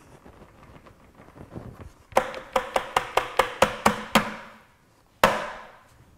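A plastic 5-gallon bucket held upside down and knocked about nine times in quick succession, each knock ringing hollow, then struck once more, harder, with a longer ring near the end, knocking the last dead mosquitoes out. Before the knocks, a faint patter of mosquitoes spilling out.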